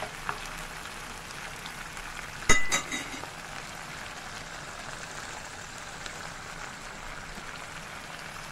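Garlic tomato sauce sizzling and bubbling in a frying pan, a steady fine hiss. About two and a half seconds in comes a sharp ringing metal clink, followed at once by a second, softer one.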